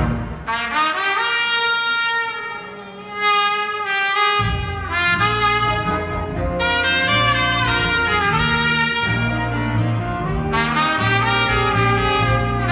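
Solo trumpet playing a melody in a bright, full tone, with some notes sliding in pitch, over a youth big band. The band's low backing drops out for a few seconds and comes back in about four seconds in. Recorded on a mobile phone.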